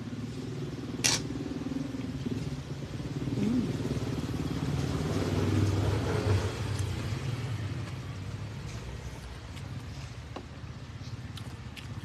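A motor vehicle's engine goes by, growing louder toward the middle and then fading away. There is one sharp clink about a second in.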